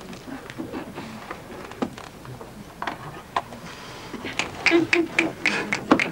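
Low, indistinct voices in a small room, with scattered sharp clicks and knocks that grow denser in the last two seconds.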